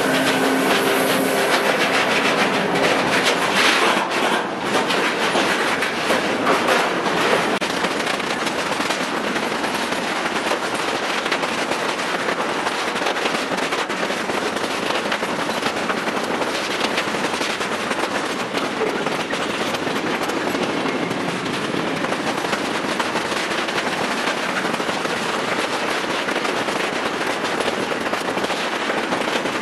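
Long intermodal freight train of container flat wagons rolling past close by at speed: a steady rushing rumble of wheels on rail, full of rapid clicking and clattering.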